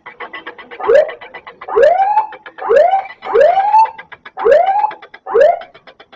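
Volcano early-warning siren sounding six short whoops, each a quick rising sweep that dips at the end, signalling that a pyroclastic flow is under way. A fast, even rattling pulse runs beneath it.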